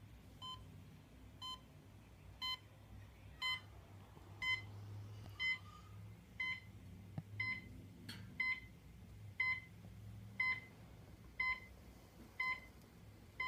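Timex clock-radio alarm buzzer beeping, one short electronic beep about every second, the beeps growing louder a few seconds in.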